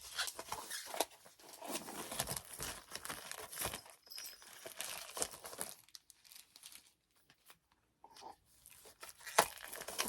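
Magazine pages rustling and crinkling as they are handled and turned, with a few sharper paper clicks near the end.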